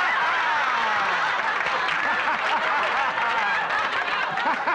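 Studio audience laughing together, many voices at once without a break, in response to a punchline.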